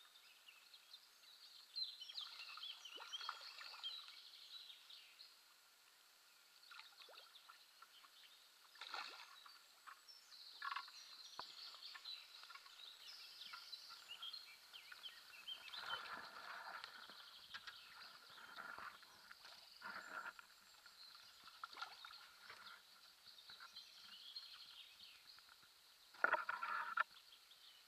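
Faint, irregular rustles and small splashes of a hooked carp being played at the water's surface close to the reedy bank, with the loudest splash near the end.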